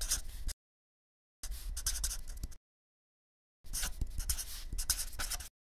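Scratchy rustling and crackling over a low rumble, in three short stretches that each break off abruptly into dead silence.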